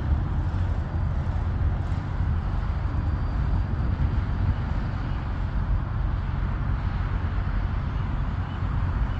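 Steady low rumble of a distant business jet's engines on its takeoff roll, mixed with wind buffeting the microphone.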